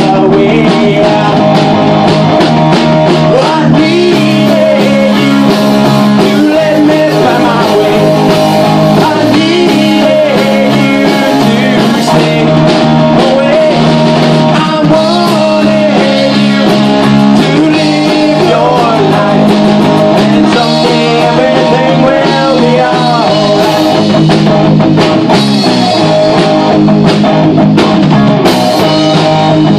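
Rock band playing live and loud on electric guitars and a drum kit, with some singing.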